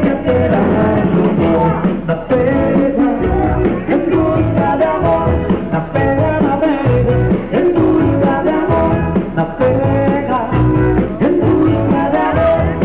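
Dance music with a steady beat and a singer.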